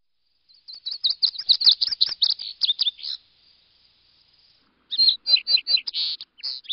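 A songbird singing: a fast run of high chirping notes, about eight a second, trailing into a faint trill, then a second shorter burst of chirps about five seconds in.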